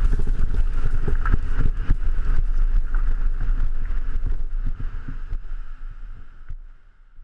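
Scott Voltage FR30 mountain bike rolling down a gravel track, heard from a camera mounted on the rider: a dense low rumble of tyres on gravel with rapid rattling of the bike and wind on the microphone. It fades away over the last couple of seconds.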